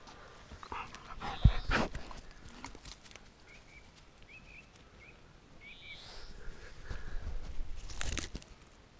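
Cat playing with a mouse in the grass right at a ground-level camera: a sharp knock about a second and a half in, a few faint short chirps in the middle, and close scuffing and rustling of grass near the end as the cat presses against the camera.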